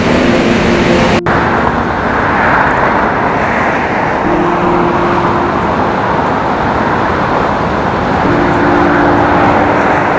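Steady urban traffic noise, with a vehicle engine's low hum holding a steady note twice. The sound drops out briefly about a second in.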